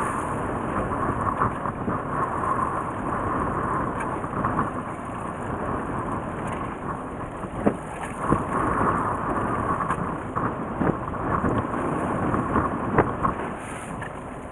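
Steady rumble and wash of a small fishing boat, engine and water or wind noise together, with a few sharp knocks.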